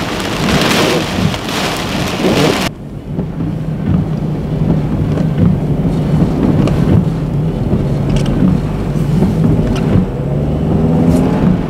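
Hurricane wind and heavy rain blowing hard, cut off abruptly a little under three seconds in. Then a vehicle's engine runs steadily with tyre and rain noise on a wet road, and the engine note rises near the end.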